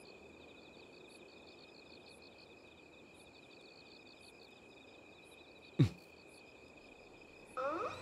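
Crickets chirping steadily, a constant high trilling chorus. About six seconds in comes a single sudden thud that drops in pitch, and music begins just before the end.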